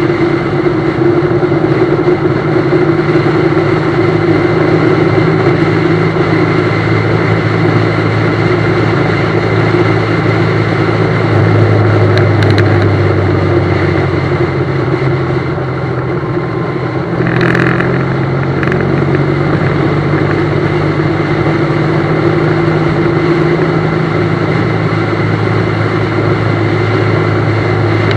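BMW GS motorcycle engine running under way, heard from on the bike with a steady rush of road and wind noise; the engine note shifts a little around the middle of the ride.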